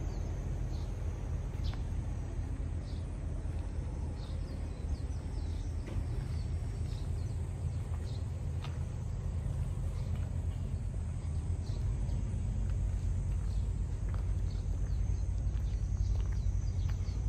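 Outdoor ambience: a steady low rumble with scattered short, high chirps of small birds, the rumble growing a little louder in the second half.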